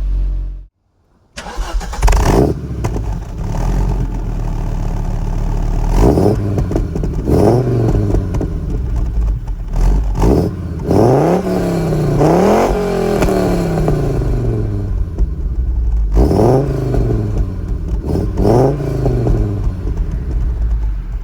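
Audi inline five-cylinder engine revved repeatedly at standstill: after a moment of silence, it gives about six short throttle blips, each pitch rising and falling back to idle.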